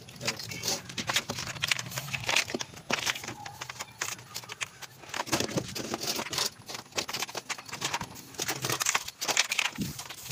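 Irregular rustling, crackling and clicking handling noise, from a hand brushing and tapping plastic water pipes close to the microphone.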